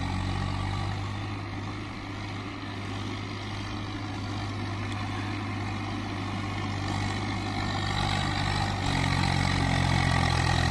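Swaraj 744 XM tractor's three-cylinder diesel engine running steadily under load as it hauls a fully loaded trolley along a dirt track. It grows louder about nine seconds in as the tractor comes closer.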